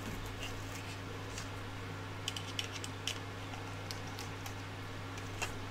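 Light irregular clicks and ticks of wires and small plastic printer parts being handled, a few close together near the middle and the sharpest near the end, over a steady low hum.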